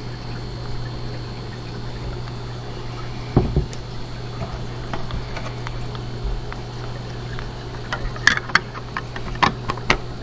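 Water being poured to top off a container of RO water, a steady pouring with a low hum underneath. A sharp knock about a third of the way in and several quick clicks and knocks near the end, as containers are handled.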